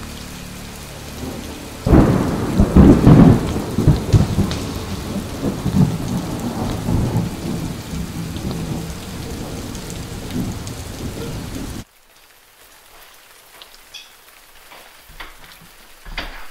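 Thunderstorm: steady rain with a loud clap of thunder about two seconds in that rumbles on for several seconds. The storm cuts off abruptly near the twelve-second mark, leaving a much quieter stretch with a few faint ticks.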